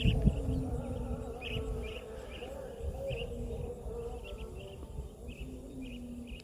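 Insects chirping in a steady repeating pattern, about two chirps a second, over a low rumbling noise that is loudest at the start.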